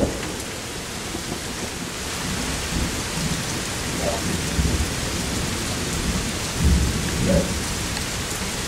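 Steady heavy rain hissing down, with low thunder rumbling briefly a few times; the strongest rumble comes near 7 seconds in.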